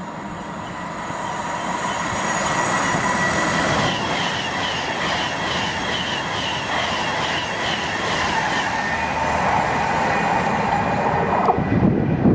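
Virgin Class 390 Pendolino electric train passing close at speed, its steady whine and rail noise building over the first few seconds and then holding. Near the end the sound changes abruptly to a lower rumble.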